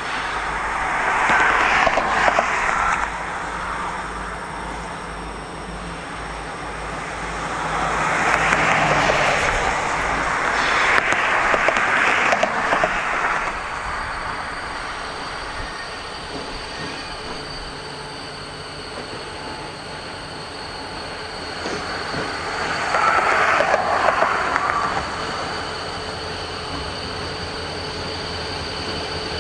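EMD SD40-2 diesel-electric locomotives, ELS 503 leading, running as they haul a freight train past. There is a steady low engine rumble, with a hissing noise that swells up three times.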